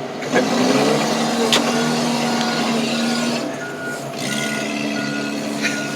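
Ford Aspire's small four-cylinder engine held at high revs while being thrashed to try to blow it up. It holds a steady high pitch, drops away briefly a little past halfway, then climbs back a bit higher. A short electronic beep repeats about once every 0.7 seconds through the middle.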